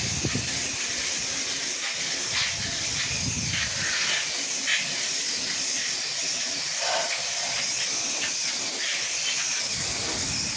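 Pressure washer wand spraying a steady hiss of water against sliding glass patio doors and brick, rinsing the house-wash chemical down.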